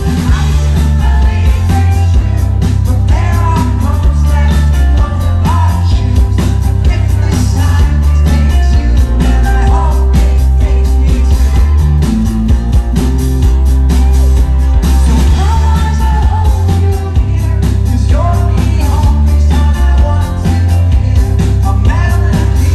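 Live rock band playing: a male lead vocal sung over strummed acoustic guitar, a second guitar and a drum kit, loud and bass-heavy.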